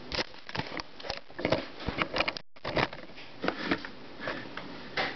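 Handling noises: scattered short taps, clicks and rustles as hands move a portable radio about on a wooden desk, with a brief break in the sound about halfway through.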